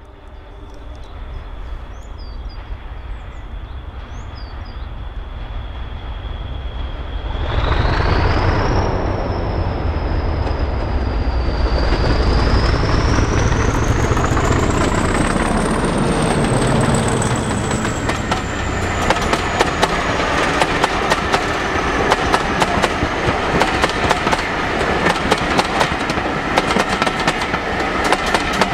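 A British Rail Class 40 diesel locomotive (English Electric 16-cylinder turbocharged engine) approaches and passes, its turbocharger giving the high 'whistler' whine over the engine's running. About a quarter of the way in, the whistle jumps up in pitch and the engine grows louder as power is applied. The whistle climbs higher as the locomotive nears, then falls away as it passes, and the coaches follow with a rapid clickety-clack of wheels over rail joints.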